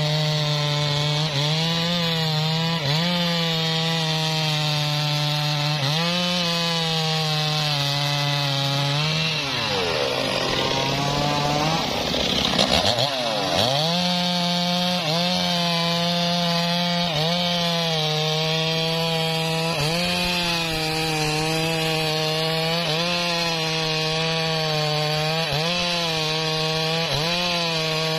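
Stihl chainsaw at full throttle cutting through a mahogany log, its engine note held steady under load with small regular dips. About ten seconds in, the bar comes out of the wood and the engine revs freely up and down, then settles back under load as a new cut begins.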